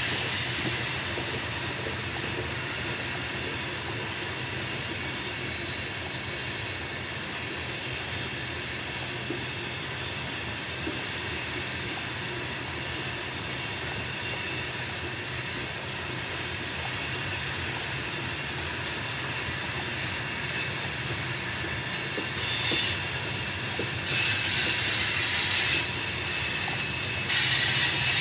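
Loaded coal hopper cars rolling around a curve on a steel trestle, a steady rumble with high wheel squeal from flanges grinding against the curved rail. Near the end the squealing grows louder in several bursts.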